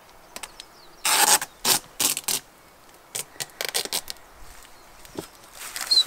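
Adhesive tape being pulled off a roll in a few short rasping scrapes about a second in, followed by fainter clicks and rustles of handling.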